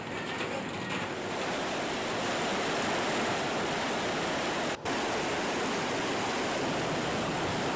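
Fast-flowing floodwater from an overflowing river rushing and churning over a village path and boardwalk: a steady rushing noise that grows louder about two seconds in and cuts out for an instant about halfway through.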